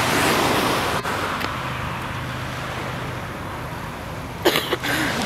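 A car driving past on the road, its tyre and engine noise fading away into a steady background traffic hum.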